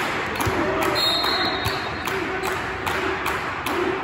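Gym crowd noise during an indoor boys' volleyball match: many voices chattering and calling in an echoing hall, with a few thumps of the ball.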